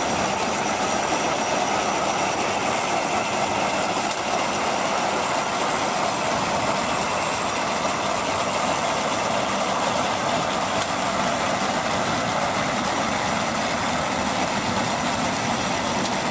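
Vintage tractor engine running steadily under load as it pulls a working reaper-binder through standing wheat, with the binder's mechanism running along with it.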